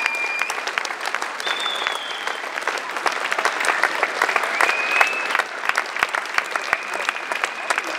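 Crowd applauding: the dense patter of many hands clapping, with a few long high tones sounding over it now and then.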